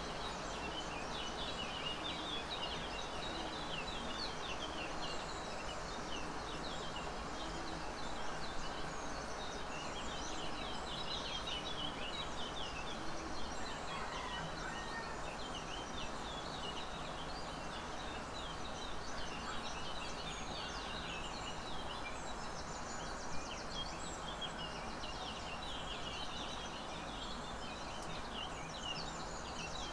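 Many small birds chirping continuously over a steady background hiss.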